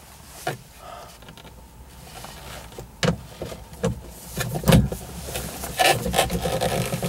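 Hard plastic interior trim in a car's roof console being handled and pried by gloved hands: scattered sharp knocks, the loudest three to five seconds in, then busier scraping and rustling toward the end.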